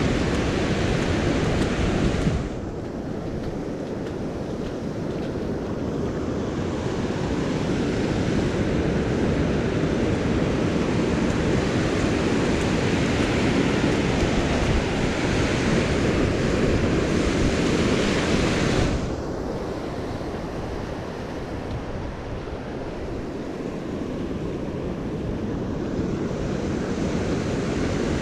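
Surf breaking and washing up a sandy beach, with wind buffeting the microphone. The noise drops suddenly twice, about two seconds in and again about two-thirds of the way through.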